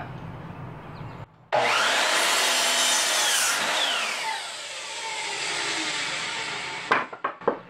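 Electric sliding miter saw (chop saw) switched on with a rising whine, its blade cutting through a length of 2x3 lumber. It is switched off, and the blade spins down with a long falling whine. A few knocks follow near the end.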